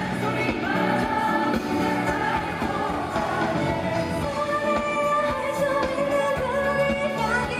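Live pop song performance: singing over band accompaniment.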